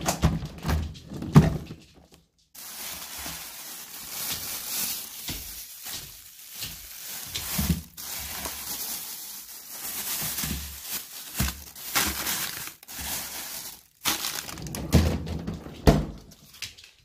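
Plastic bags crinkling and rustling while a hand rummages through a refrigerator drawer, with irregular bumps. Knocks and thunks of the refrigerator lid and drawer come in the first two seconds and again near the end.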